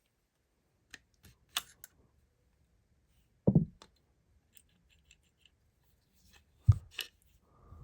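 Metal parts of a Heritage .22 LR gun being handled during disassembly: a few sharp clicks and a couple of heavier knocks, spaced irregularly a second or more apart.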